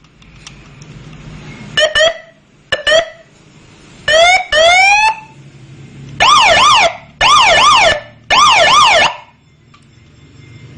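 Police patrol-escort electronic siren blipped in short bursts: two quick double chirps, then two rising whoops, then three bursts of fast up-and-down yelp, each under a second. A faint low hum runs underneath.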